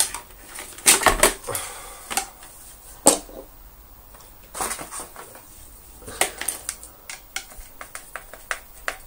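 Hard plastic parts of a Dyson DC24 vacuum cleaner clicking and knocking as they are handled and worked apart. The loudest knocks come about one and three seconds in, with a run of lighter ticks near the end.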